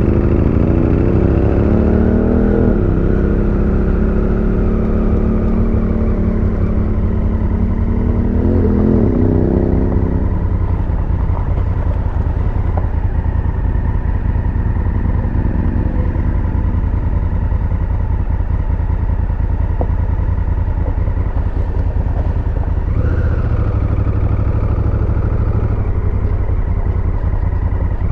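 Honda Africa Twin's parallel-twin engine pulling away at low speed. Its revs climb over the first couple of seconds and drop about three seconds in. They climb and fall again around nine to ten seconds in, then settle into steady low-rev running.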